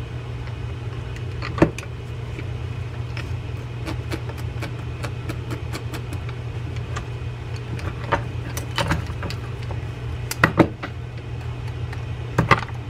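Small metal clicks and taps from a Daiwa Saltist 30 level-wind reel's star drag adjuster being fitted and turned by hand, its drag clicker ticking irregularly, with a few louder clicks near the middle and end. A steady low hum lies underneath.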